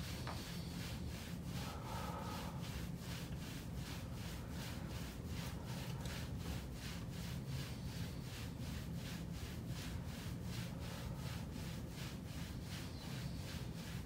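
Hands rubbing and pressing rhythmically on the back of a patient's shirt during soft-tissue work on the upper back muscles, about two and a half soft strokes a second, over a low steady hum.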